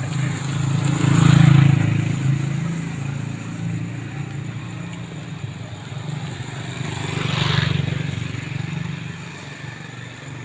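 A motor vehicle engine running with a steady low hum, growing louder twice: about a second and a half in and again near the eight-second mark.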